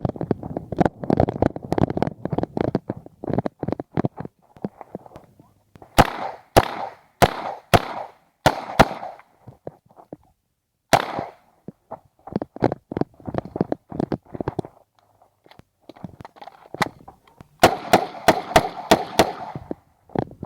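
9mm Uzi Pro pistol being fired in quick strings during an IPSC stage: six shots about half a second apart, a single shot a couple of seconds later, then a faster string of about seven near the end. Fainter shots and knocks fill the gaps in between.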